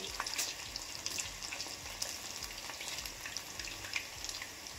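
Bread-coated cheese balls deep-frying in hot oil in a steel pan: a steady sizzle with scattered faint crackles.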